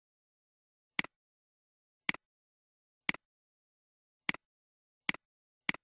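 Computer mouse button clicking six times at irregular intervals of about a second. Each click is a sharp double tick of the button going down and coming back up, with silence between.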